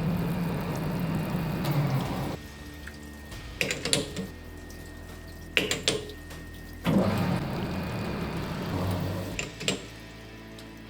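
Metal lathe machining a steel bar shaft, with liquid splashing in two stretches of a few seconds each, a steady high tone under the first half, and a few sharp metallic clicks between the stretches.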